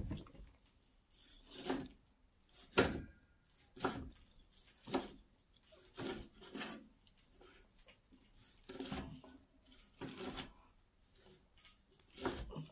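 Chef's knife slicing a seared steak on an end-grain wooden cutting board. Each cut is a short scrape or knock of the blade through the meat and onto the wood, about ten in all, roughly one a second with a pause near the middle.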